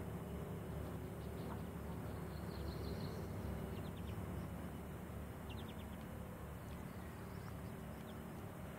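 Boat motor running steadily with a low drone, and a few faint, short bird chirps above it.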